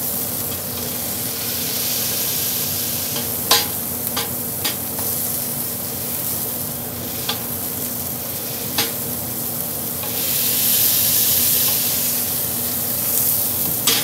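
Ground beef sizzling on a hot cast iron griddle as it is smashed flat with a metal burger press, the sizzle growing louder about ten seconds in. A few sharp knocks of the press against the griddle come in a cluster a few seconds in, then singly later on.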